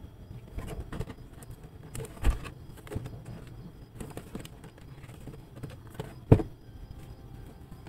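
Cardboard model-kit box handled and turned over in the hands: soft rubbing and light taps, with two sharp knocks, about two seconds in and just past six seconds, the second the loudest.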